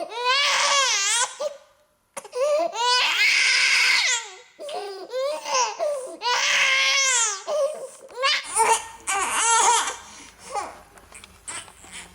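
A baby crying in long, wavering wails with a brief dead gap about two seconds in. From about two-thirds of the way through, the cries turn shorter and fussier over a faint low hum.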